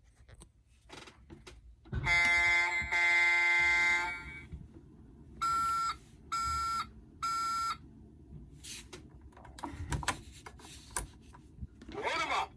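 An electronic buzzer sounds for about two seconds, then three short, evenly spaced beeps follow, with scattered clicks and a rising chirp near the end.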